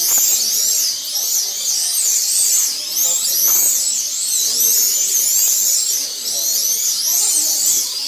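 Several 1/32 Eurosport slot cars lapping a multi-lane track, their small electric motors whining high and overlapping, each rising and falling over and over as the cars accelerate down the straights and brake into the corners. A low murmur of voices runs beneath.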